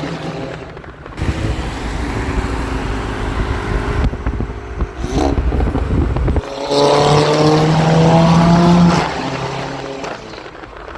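VW Golf GTI's engine through a 3-inch straight-pipe exhaust, very loud, running while driving; about two-thirds through the exhaust note swells into a strong steady drone as the car pulls, then fades off near the end.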